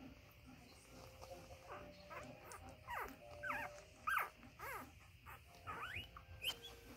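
Newborn golden retriever puppies, a few days old, squeaking: short high-pitched cries that mostly fall in pitch. They come in quick succession from about three seconds in.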